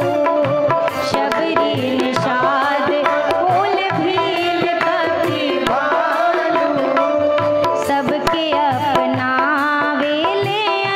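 A woman singing a devotional bhajan with a wavering, ornamented melody, accompanied by tabla beats and steady held notes from an accompanying instrument.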